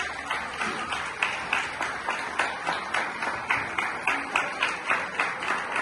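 Audience applause that settles into steady rhythmic clapping in unison, about three claps a second.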